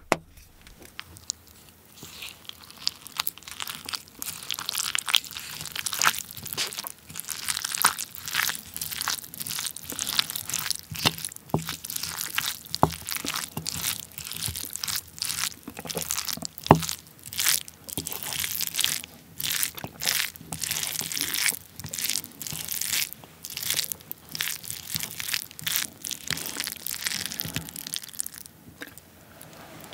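A wooden spoon stirring and mashing rice mixed with cockle sauce and sesame oil in a ceramic bowl. It makes a dense run of quick, irregular clicks and scrapes that starts about two seconds in and stops shortly before the end, with one sharper knock of the spoon about halfway through.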